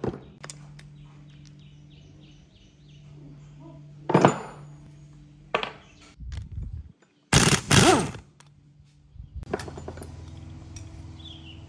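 Metal knocks and clunks from a rusty air-cooled motorcycle cylinder head and its rocker gear being handled and lifted, with one sharp knock about four seconds in and the loudest clatter about seven to eight seconds in, over a steady low hum.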